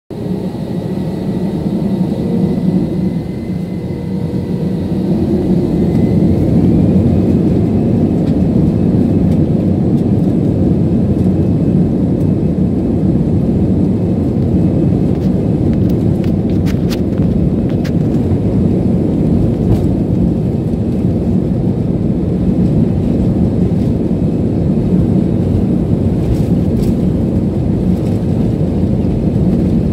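Jet airliner's engines and rolling noise heard from inside the passenger cabin while the plane moves along the runway: a loud steady rumble with a faint whine that rises slightly about six seconds in, as the sound grows and then holds steady.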